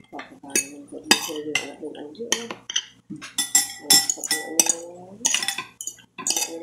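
Metal fork and spoon clinking and scraping against a ceramic plate of rice and chicken adobo: a quick, irregular series of sharp clinks.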